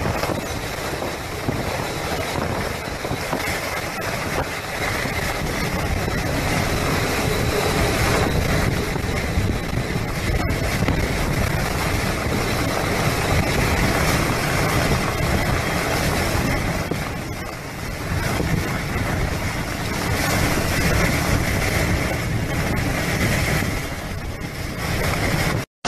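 Hurricane-force wind with driving rain blasting the microphone: a dense, unbroken rushing noise that swells and eases with the gusts, cutting off abruptly near the end.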